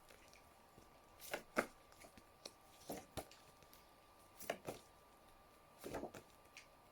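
Phonics flashcards being shuffled by hand: faint, scattered soft taps and rustles, about a dozen over several seconds.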